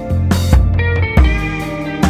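Soft lounge background music with a bass line and a steady drum beat.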